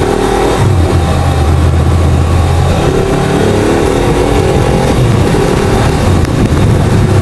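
Motorcycle engine running at a steady road pace, its pitch shifting a little now and then with the throttle, under a steady rush of wind and road noise.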